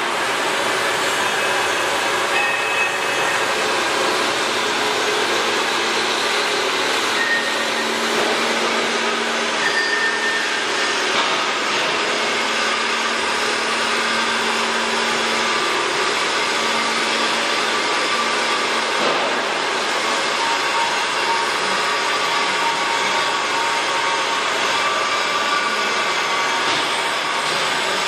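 Steady machinery noise, an even rush with no breaks, with a faint steady hum through the middle stretch.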